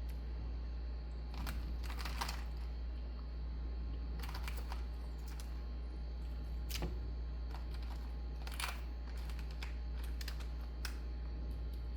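Shrimp cooking in butter in a skillet, with irregular clusters of crackling and popping over a steady low hum.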